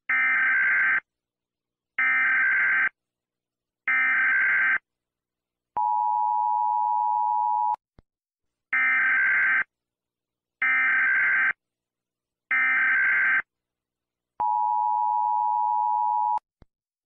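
US Emergency Alert System tones: three short electronic data bursts, each about a second long, followed by about two seconds of the steady two-tone attention signal. The whole sequence then plays a second time, and a faint click follows each attention tone.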